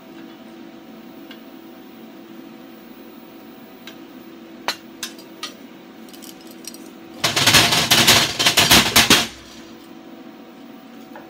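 Rapid metallic clatter on steel plate: a dense run of quick knocks lasting about two seconds, starting a little past halfway, after a few scattered light clicks. A steady low hum runs underneath.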